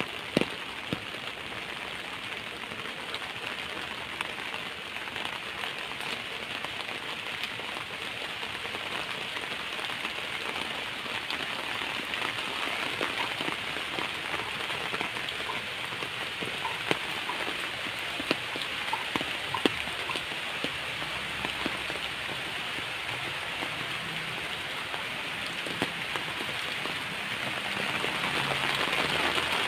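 Steady rain falling, an even hiss with scattered sharper drops, growing a little louder near the end.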